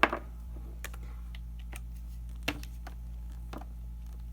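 Scattered light clicks and taps from handling, about half a dozen over four seconds, over a steady low hum.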